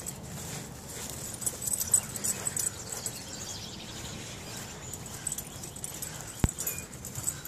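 Footsteps through grass with a dog moving close by, and one sharp knock about six and a half seconds in.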